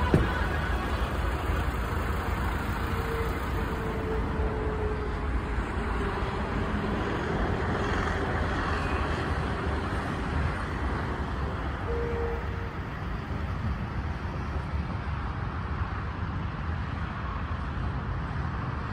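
Steady outdoor rumble and hiss with no distinct events, heaviest at the low end, with faint brief tones about three seconds in and again around twelve seconds.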